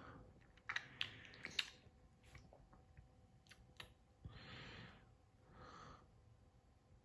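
Near silence with a few faint sharp clicks about a second in, then two soft breath-like hisses.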